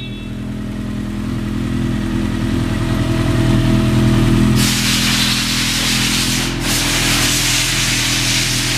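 Honda CB1100's air-cooled inline-four engine idling steadily. A steady hiss joins about halfway through.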